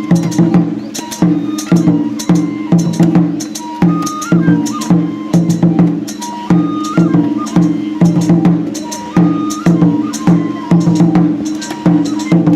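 Japanese shrine festival music accompanying a folk dance: quick, steady drum strikes, about three to four a second in repeating phrases, under a thin high flute melody.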